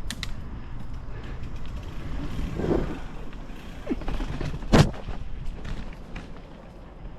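Mountain bike riding over a rough trail: a steady low rumble of tyres and wind, with sharp knocks and clanks as the bike jolts over bumps, the loudest nearly five seconds in.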